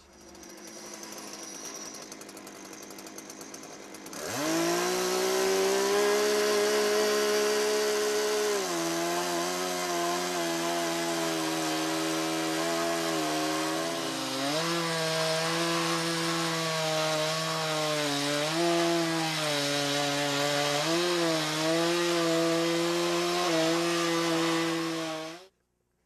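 Chainsaw on a Logosol Woodworker's Mill revving up about four seconds in, then ripping lengthwise along an elm log to take a flat top off it. Its pitch drops as the chain takes the load and wavers through the cut. The sound cuts off suddenly just before the end.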